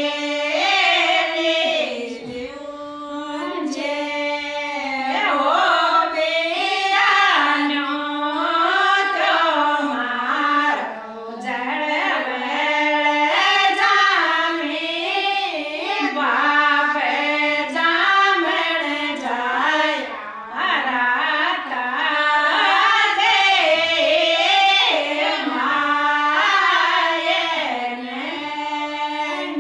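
Women singing a Rajasthani folk song together, unaccompanied, in a melody that glides and bends without a break.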